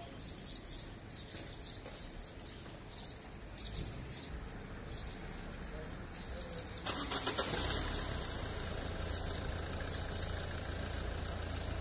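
Swallows giving short, high, repeated chirps as they mob a cat crouching on the ground. About seven seconds in there is a brief rushing noise, followed by a steady low rumble in the background.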